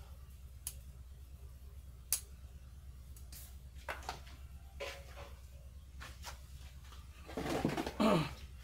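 Scattered light clicks and knocks of garden tools and a plastic pot being handled, the sharpest about two seconds in. Near the end a louder rustling scrape lasting about a second as a person settles onto a low stool.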